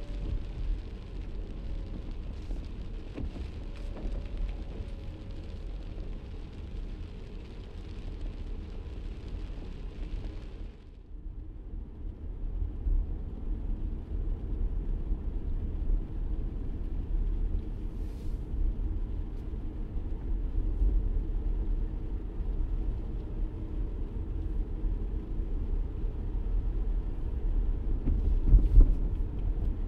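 Car cabin noise while driving in the rain: a steady low rumble of engine and tyres under a hiss of rain and wet road. About 11 seconds in, the higher hiss drops away and the low rumble grows louder, with a brief louder swell near the end.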